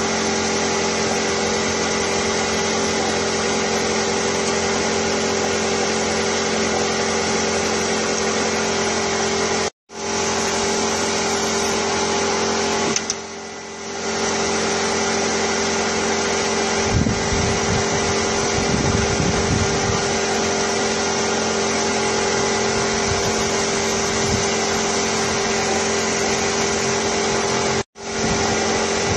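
Steady hum of a running motor, a constant drone with a fixed pitch. It cuts out abruptly for an instant twice, and there is some low rumbling partway through.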